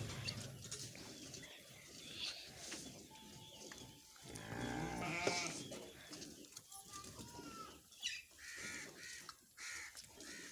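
A sheep bleating once, a long wavering call about four seconds in, over short spurts of milk squirted by hand from a cow's teats into a steel pot.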